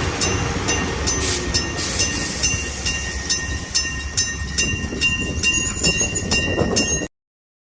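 An old-style electric-bell level-crossing signal ringing in an even rhythm of about two to three strokes a second, while a Hokuriku Railroad Ishikawa Line train runs past with a steady rumble. The sound cuts off suddenly about seven seconds in.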